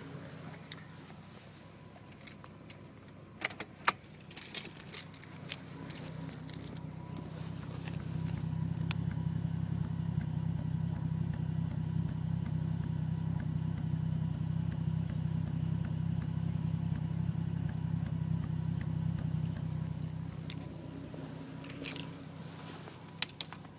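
A 1990 Toyota Supra's 7M-GTE turbocharged straight-six idles with a misfire, left running on the turbo timer with the key out of the ignition. Keys jingle a few seconds in and again near the end. The engine gets louder about eight seconds in and eases back some twelve seconds later.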